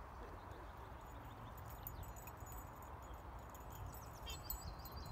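Quiet outdoor ambience: a low rumble of wind on the microphone, with faint high chirps of small birds in the second half.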